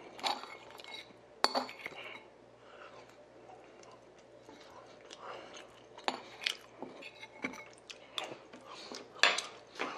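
A metal spoon clinking and scraping against a ceramic bowl while someone eats, with scattered short clinks, the sharpest about a second and a half in and again near the end, and soft chewing between.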